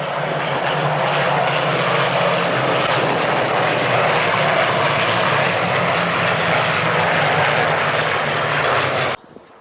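Loud, steady drone of piston-engined propeller aircraft flying over, cutting off abruptly near the end.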